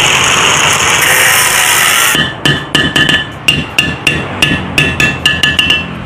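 Angle grinder cutting into the steel shell of a refrigerator compressor for about two seconds, then stopping suddenly. A quick series of hammer blows follows, about three or four a second, driving a screwdriver into the cut to pry the shell open, and the metal shell rings with each strike.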